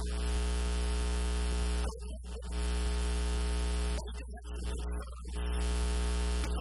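Loud, steady electrical buzz: mains hum with a stack of overtones swamping the recording. Short bits of a man's voice break through about two seconds in and again between about four and five and a half seconds.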